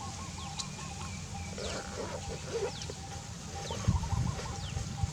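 Birds calling: short falling chirps, a repeated wavering call at the start and again about four seconds in, and a brief burst of lower calls about two seconds in, over a steady low hum.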